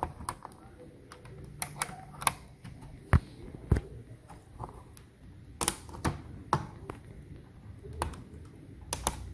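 Irregular sharp plastic clicks and taps from a laptop being taken apart by hand: ribbon-cable connectors being released and the plastic case being handled.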